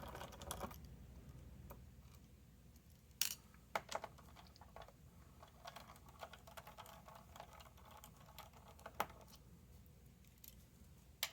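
Faint, scattered small clicks and taps of a screwdriver and small screws being handled on a mini PC's plastic case, with a few sharper clicks a little after three seconds, about four seconds and about nine seconds in.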